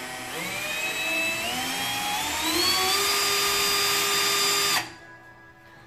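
Bosch GSR 120-LI cordless drill/driver running free with no load. Its motor whine rises in steps as the variable-speed trigger is squeezed harder, then holds steady at top speed and cuts off suddenly near the end when the trigger is released.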